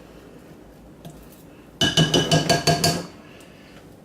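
A spatula striking and scraping the side of a mixing bowl while scraping hot process soap batter down the sides. It comes as a quick run of about eight ringing clinks in just over a second, beginning a little before halfway through.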